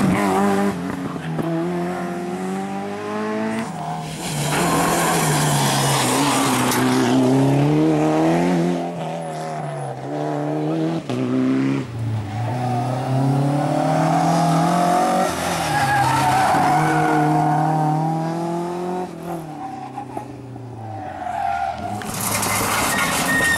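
Rally cars driven hard, one after another: engines climbing and dropping in pitch again and again through the gears, with some tyre squeal.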